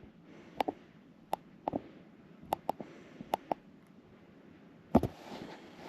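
Small sharp clicks, irregular and spaced out, about ten in three and a half seconds, from a handheld flashlight's switch being pressed repeatedly, followed by a louder knock about five seconds in.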